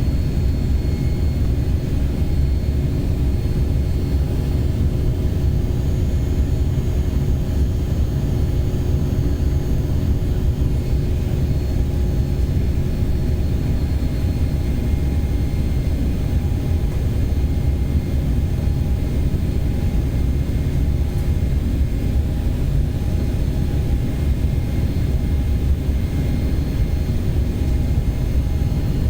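Jet airliner running with a steady low rumble and a few faint steady tones above it, with no rise or fall, during a flight's takeoff and climb.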